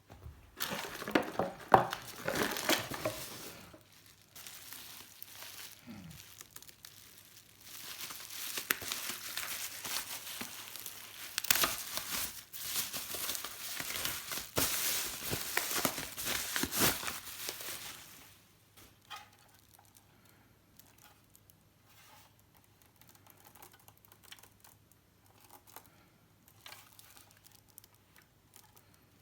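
Packaging being handled while a Corsair CV650 power supply is unboxed: crinkling and rustling in bursts for about the first eighteen seconds. After that only faint taps and handling noises.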